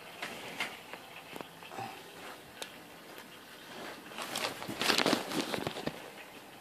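Handling noise: scattered clicks and rustling, with a louder stretch of rustling and scraping from about four to six seconds in.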